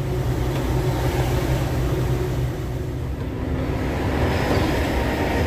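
Heavily loaded tractor-trailer truck running steadily at road speed: a low, even engine drone with tyre and road noise. A hiss swells about four seconds in.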